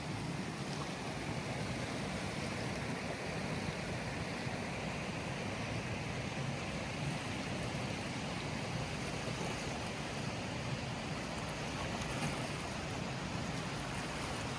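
River water flowing, a steady rushing noise with no breaks.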